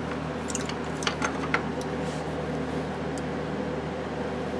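Light handling noises of a greasy motorcycle chain roller being wiped in a cloth rag: a few small clicks and scuffs early on, then soft rubbing, over a steady low hum.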